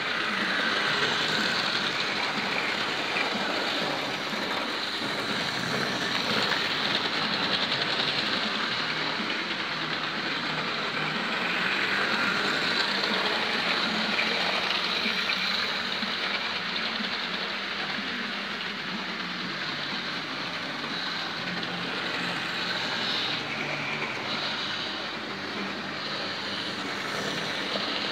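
Electric model train running steadily round its track: a continuous whirring of the small motor mixed with the rattle of its wheels and coaches on the rails.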